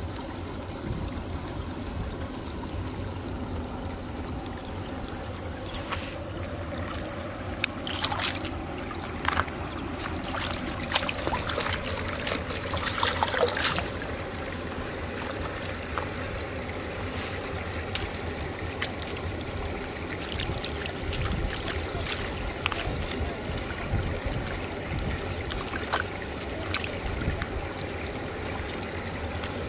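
Shallow water splashing and trickling as a woven bamboo tray of vegetables and small crabs is dipped and rinsed by hand, with a spell of louder splashing around twelve to fourteen seconds in.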